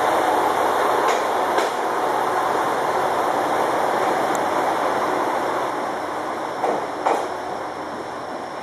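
JR Shikoku 2000 series diesel railcars rolling slowly past and pulling away as they shunt, their running noise slowly fading. A few sharp clacks in pairs come from the wheels crossing rail joints, about a second in and again near the end.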